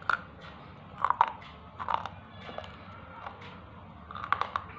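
A thick white Kangaroo-brand slate pencil being bitten and crunched dry between the teeth: sharp, brittle crunches in small clusters about a second apart, with a quick run of several crunches near the end.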